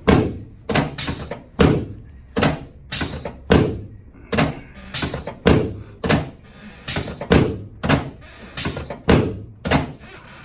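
A chiropractic adjusting device, set on its lightest setting, striking over and over in a steady run of sharp thuds, about two a second.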